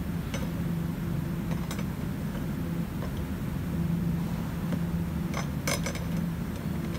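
Fuel pump lock ring being turned by hand around the pump flange on a plastic fuel tank, creaking and clicking. A cluster of sharp clicks comes a little over five seconds in, over a steady low hum.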